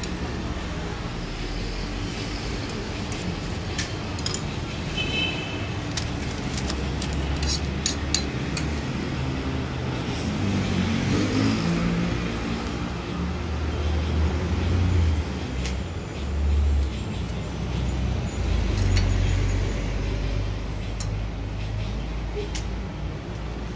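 Street traffic rumbling, with vehicles passing and the low hum swelling several times. Light metallic clicks of tongs against the cake griddle's brass moulds come now and then, mostly in the first half.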